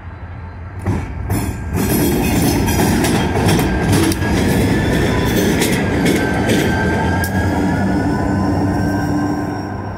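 Six-axle diesel-electric locomotive NYSW 3634 rolling slowly past close by, loud from about two seconds in: the diesel engine runs under steel wheels clicking over the rails, with a thin wheel squeal.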